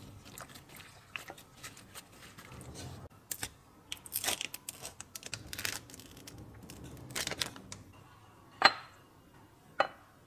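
Plastic food-prep gloves crinkling and squelching as hands work marinated meat in a glass bowl, then a plastic tub with a hinged lid being opened with rustling, crackling plastic sounds, and two sharp knocks about a second apart near the end.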